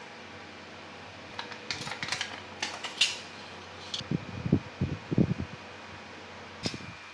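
Small parts being handled at a workbench: scattered light clicks and rustles, then a few soft low knocks and a last click near the end, over a steady fan-like hum.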